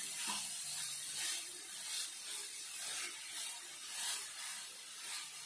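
Wooden spatula stirring and scraping grated carrot around a kadai, in repeated strokes about once a second, over a faint steady hiss of the carrot frying in ghee.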